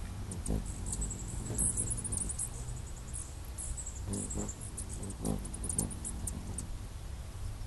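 Hummingbirds calling at a feeder: bursts of rapid, very high-pitched squeaky chips, thickest about two seconds in and again near six seconds, over a steady low rumble.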